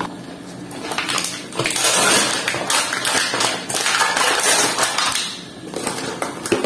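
Plastic bag crinkling and rustling as it is handled, with small knocks of plastic kitchen containers on the counter and a sharp click near the end.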